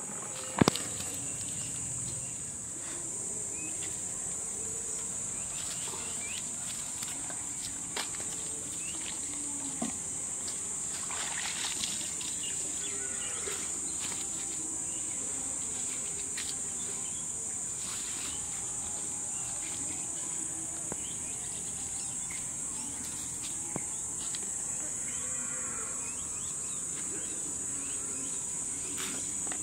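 Steady high-pitched drone of insects, a cricket or cicada chorus, running evenly throughout. A sharp click about half a second in and a few fainter clicks and rustles later, from close handling.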